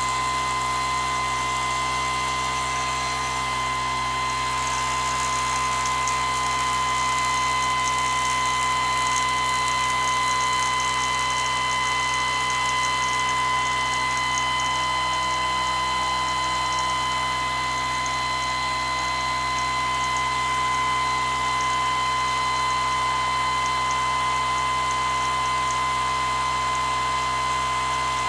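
Home-built pulse motor running steadily at speed, its coils pulsing about 520 times a second: a steady high-pitched whine over the hiss of the spinning rotor.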